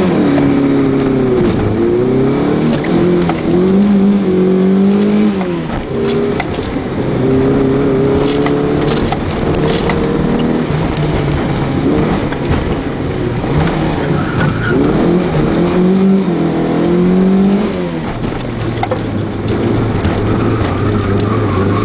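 1991 VW Jetta 16V's 16-valve four-cylinder engine, heard from inside the cabin during a hard autocross run. It revs up and drops back again and again, then settles to a steadier note near the end.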